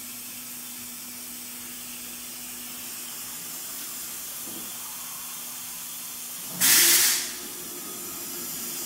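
MultiCam 3000 Series CNC router homing in X and Y: a steady motor hum over a constant hiss, broken about two-thirds of the way through by a sudden loud burst of hiss lasting about half a second, after which the hum settles at a slightly higher pitch.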